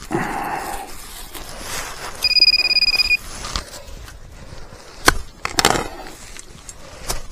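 Metal detector giving one steady high electronic tone for about a second, starting about two seconds in, as it sounds off over a buried metal target. Around it, rustling and a couple of sharp knocks about five seconds in.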